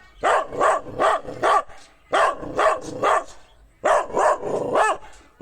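Dog barking in three quick runs of about four barks each, with short pauses between the runs.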